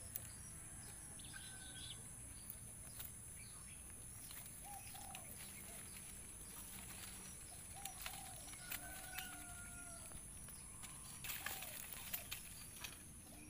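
Quiet tropical outdoor ambience: a steady high-pitched insect drone, with a few short, soft rising-and-falling calls around the middle and later part, and scattered light clicks and rustles.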